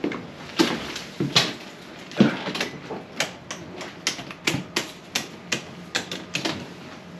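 An irregular run of sharp clicks and light knocks, about three a second, coming faster in the second half.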